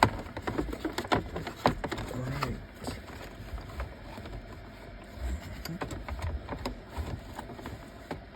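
Irregular clicks, taps and knocks of car interior plastic trim and switch parts being handled and pressed back into place, busiest in the first three seconds and sparser after.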